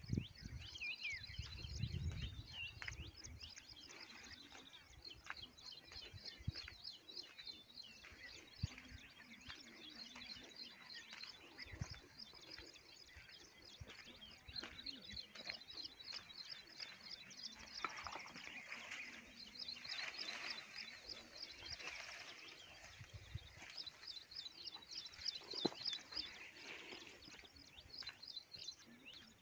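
Faint outdoor bird chirping: a fast, high repeated chirp runs on almost without a break, and other calls come and go over it. There are low rumbles near the start and again about two-thirds of the way through.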